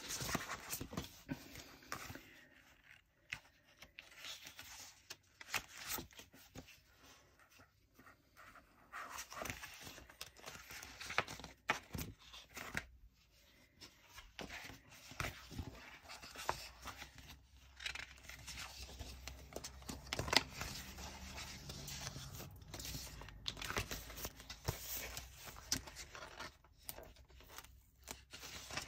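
Sheets of paper and a book of alphabet sticker sheets being flipped and handled, rustling and crinkling with irregular light taps and scrapes.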